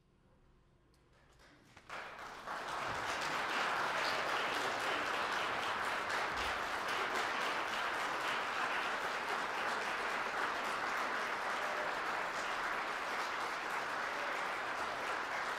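Near silence for about two seconds, then audience applause breaks out and holds steady.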